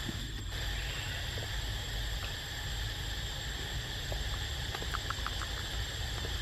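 Steady insect drone in several high bands, over a low rumble. About five seconds in, a quick run of five short ticks.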